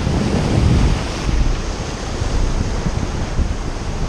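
Ocean surf washing against coastal rocks, with wind buffeting the microphone in a low rumble. It is a little louder in the first second.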